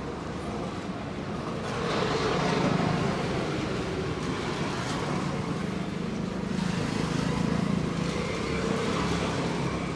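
Street traffic passing: steady road noise that swells as vehicles go by, loudest about two seconds in and again around seven seconds in.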